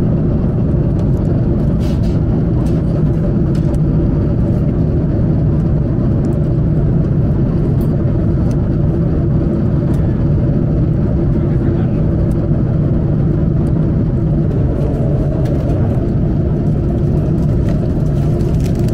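Steady airliner cabin drone in flight: jet engine and airflow noise, unbroken and loud, with a few faint clicks scattered through it.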